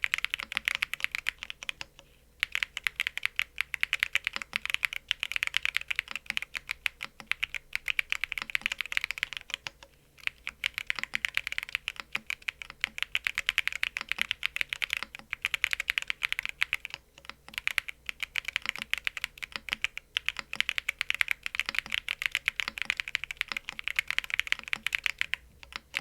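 Fast, steady typing on a Cannonkeys BakenekoGO custom mechanical keyboard: Fadog White V3 switches in an O-ring-mounted FR4 plate, with PBT keycaps and a frosted polycarbonate case. The keystrokes come in dense runs broken by several brief pauses.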